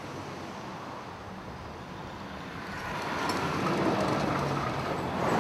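Busy road traffic: a steady wash of car noise that grows louder about halfway through, with a low engine drone.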